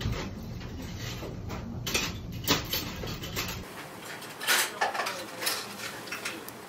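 A few light clinks and scrapes of a metal spoon against a stew pot and dishes, over steady restaurant background noise. The low background hum drops away about three and a half seconds in.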